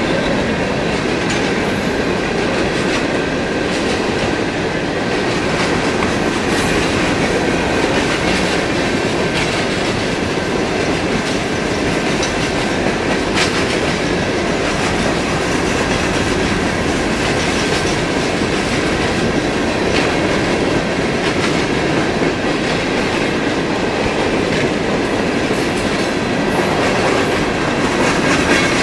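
Empty coke hopper cars of a freight train rolling past close by: a steady rumble with the clatter of wheels on the rails.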